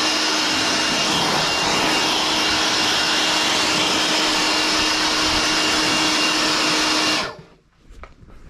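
DeWalt DCV100 18-volt cordless blower running flat out with a steady rush of air and a faint whine, then switched off about seven seconds in, dying away in under a second.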